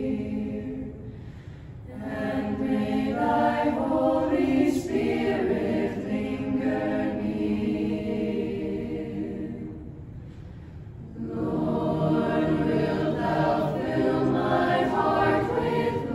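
Mixed youth choir of boys and girls singing together. The voices drop away briefly between phrases, once about a second in and again around ten seconds in.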